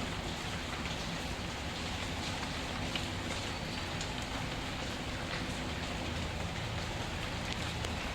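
Steady rain falling, with scattered small pops and crackles of a wood fire.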